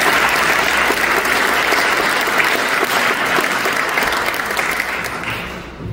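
Audience applauding, the clapping dying down near the end.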